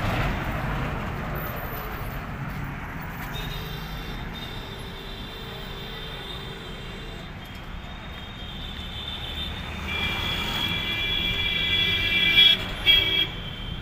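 Steady roadside traffic rumble, with a high-pitched vehicle horn sounding for a few seconds about three seconds in and again from about ten seconds in; the second stretch ends in two short, louder blasts.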